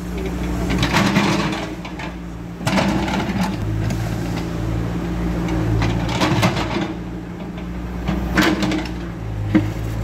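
New Holland backhoe loader's diesel engine running steadily, its note swelling and easing as the backhoe works. Several short rushes of scraping noise come as the bucket digs into and scoops sandy soil.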